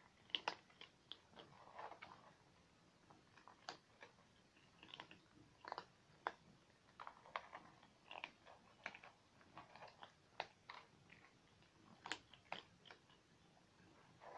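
Several domestic cats eating together from a plastic bowl: faint, irregular chewing clicks and crunches, a few sharper than the rest.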